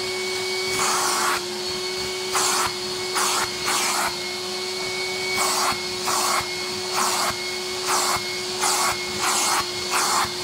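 VAX POWA 4000 washing vacuum cleaner running and sucking flour out of a carpet. Under a steady motor hum, the rush of suction swells and drops about once a second.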